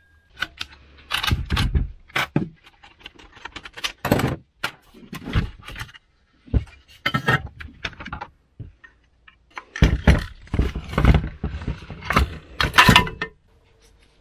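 Metal chainsaw parts being handled and taken apart: the saw chain rattling as it is lifted off, then irregular clinks, clatter and knocks of metal parts against each other and the workbench.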